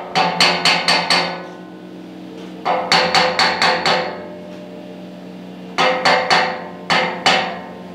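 Hammer tapping a thick steel plate held in a locking clamp against square steel tubing, knocking it into position: three quick runs of about half a dozen ringing metal blows each, over a steady low hum.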